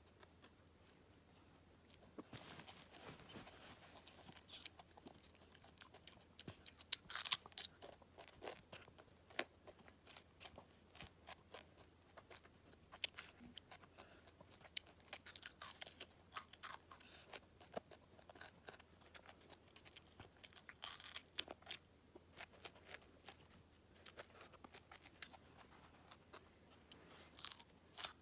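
A small child biting and chewing raw green radish: crisp crunches as she chews, with sharper bite crunches about 7, 16, 21 and 27 seconds in.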